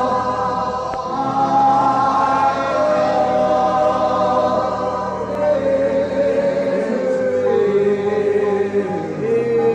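Congregation singing a slow worship chorus together, many voices holding long notes that step slowly downward in pitch.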